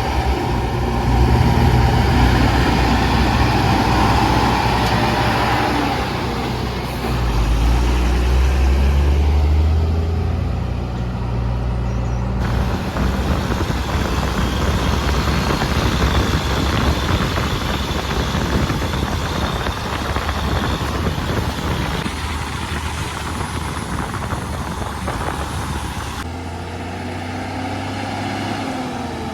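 Diesel engine of a JCB 3DX backhoe loader running as it digs and loads, its pitch and load rising and falling. The whole sound changes abruptly twice, at about 12 and 26 seconds in.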